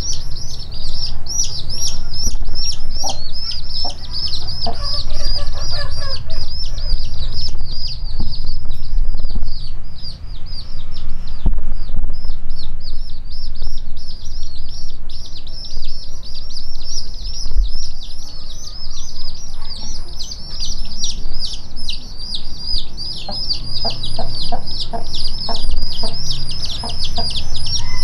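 A brood of young chicks peeping without pause, a dense stream of high, quickly falling peeps several times a second. A mother hen clucks in short runs of low, evenly spaced clucks, a few seconds in and again near the end.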